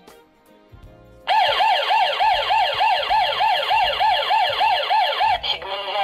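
CS108 GSM/Wi-Fi home alarm panel sounding its siren when the motion sensor is tripped after arming. The electronic wail rises and falls about three times a second, starts loudly about a second in and cuts off suddenly near the end.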